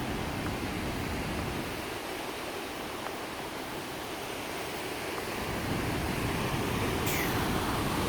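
Steady rushing of Sahalie Falls on the McKenzie River, growing louder near the end.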